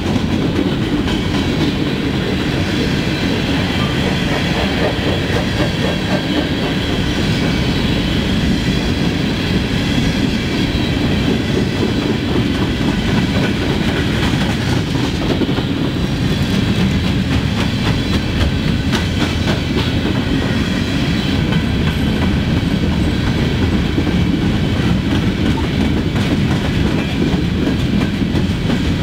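Freight train of steel coal hopper cars rolling past close by: a steady rumble of wheels on rail, with clickety-clack as the wheels cross the rail joints.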